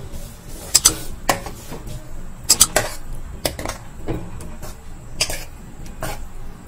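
Metal spoon scraping and knocking against a heavy-bottomed kadai while stirring grated pumpkin in ghee, in irregular strokes a few seconds apart and sometimes in quick pairs.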